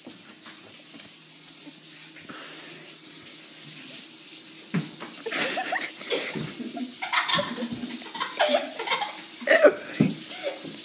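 Kitchen sink tap running in a steady rush. About halfway through, excited voices and sharp knocks come in over it.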